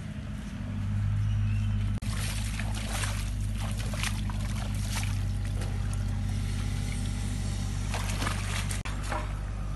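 Water splashing and sloshing as a fishing net full of small fish is swished and shaken in shallow pond water, over a steady low hum like a running motor.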